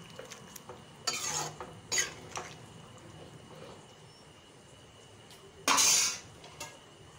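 Steel ladle stirring potato curry in a steel kadhai, scraping against the pan a few times. The loudest scrape comes near the end.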